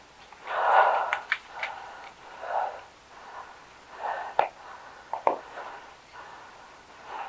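Heavy breathing of an airsoft player close to the microphone, puffs every second or two, with a few sharp clicks in between, a cluster about a second in and another pair around four to five seconds.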